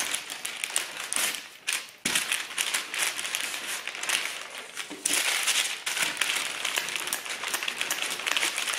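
Baking paper crinkling and rustling under a wooden rolling pin and flat hands as pie dough is rolled out between two sheets, in long strokes with brief pauses between them.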